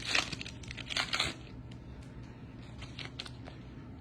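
A foil trading-card pack being torn open and its wrapper crinkled, in two short bursts near the start and about a second in, followed by a few light clicks of cards being handled.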